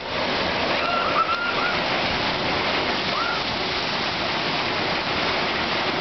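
Log flume water rushing steadily, pouring down the flume's channels and churning in the splash pool.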